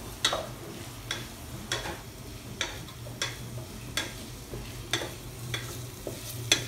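Wooden spatula stirring onions frying in oil in a steel pot, knocking against the pot's side about every two-thirds of a second over a faint sizzle and a steady low hum.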